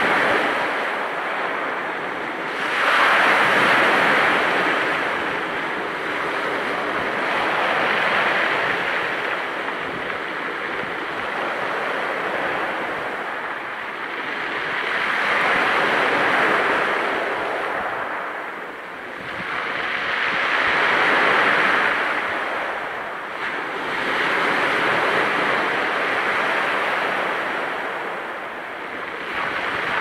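Small waves breaking on a pebble beach and drawing back over the stones, tumbling the pebbles in the wash. The surf swells and falls every four to five seconds.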